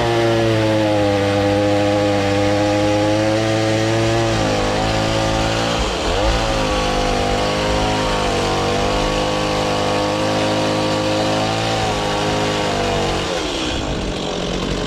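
Gasoline chainsaw running at high revs as it cuts through a timber beam. The engine note dips sharply and recovers about six seconds in, then falls away near the end.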